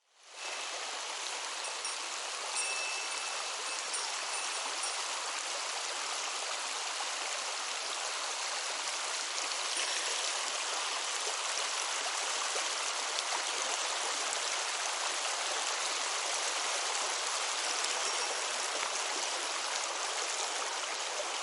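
Mountain stream flowing: a steady rush of water that fades in at the start and then holds even.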